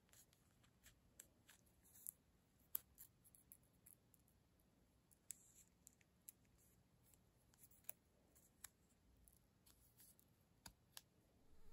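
Faint, scattered ticks and crackles of vinyl sticker paper as fingers pick at and peel the backing off a small cut-out sticker.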